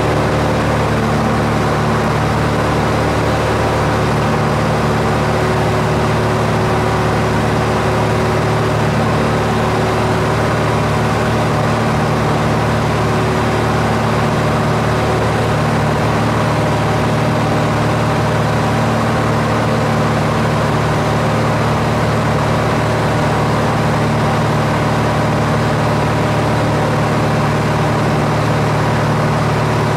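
Steady, unchanging drone of an aircraft's engine heard from on board, a constant low hum with a rushing noise over it.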